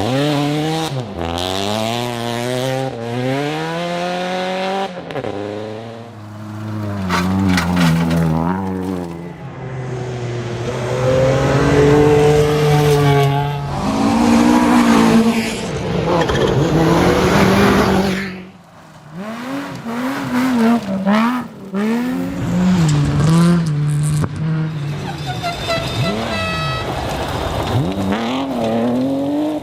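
Rally car engines revving hard through the gears, the pitch climbing and dropping again and again with each shift and lift. There is a brief lull about two-thirds of the way through.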